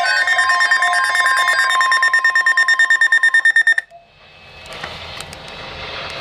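NOAA Weather Radio alert alarm through a weather radio: a loud steady warning tone with rapid pulsing beeps that cuts off suddenly about four seconds in, followed by faint hiss and a few clicks, signalling that a severe weather message follows.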